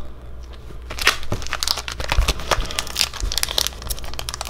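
Foil Pokémon card booster pack being crinkled and torn open by hand. Dense sharp crackling starts about a second in and goes on as the wrapper is worked open.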